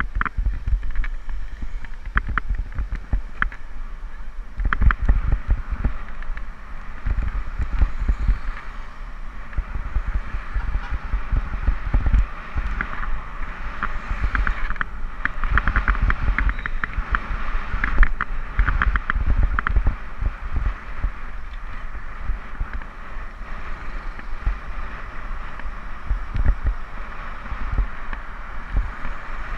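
Wind and road noise on the camera of a cyclist riding a road bike through traffic: uneven low rumbling buffets with a steady hiss and scattered short clicks.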